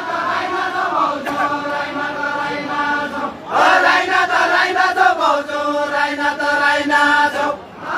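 Voices singing a Deuda folk song together in a chant-like group melody, in two long held phrases with a short break a little over three seconds in.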